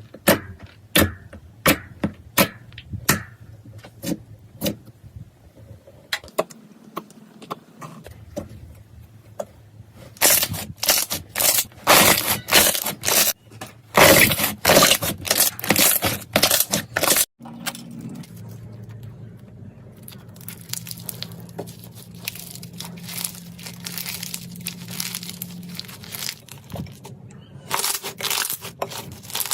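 Crunchy slime being squeezed and pressed by hand, giving sharp crackling and popping clicks in uneven bursts, densest in a stretch just past the middle. After a sudden break, a softer, finer crackle follows, then loud clicks again near the end.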